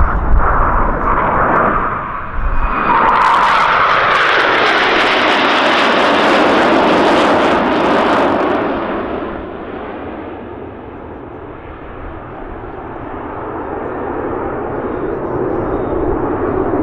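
A formation of Northrop F-5E Tiger II jets, each powered by twin General Electric J85 turbojets, passing close by in display flight. The loud jet roar builds about three seconds in, with a hissing, tearing edge. It fades after about eight seconds, and a duller jet rumble swells again near the end as the formation climbs away.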